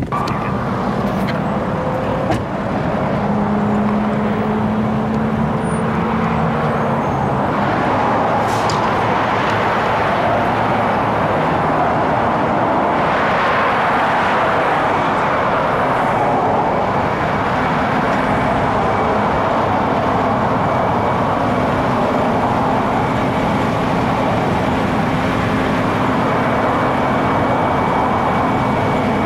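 Steady noise of freeway traffic and idling emergency vehicles, with a faint steady hum running through it.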